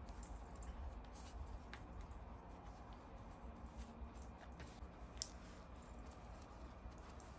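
Faint, scattered small clicks and taps over a low steady rumble, with one sharper click about five seconds in.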